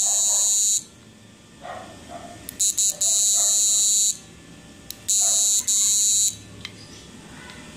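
High-pitched electronic buzzer of a PWM module's water-protect alarm, sounding in on-off bursts about a second long, with a couple of short chirps between them. It starts and stops as a lever microswitch sensor is worked by hand.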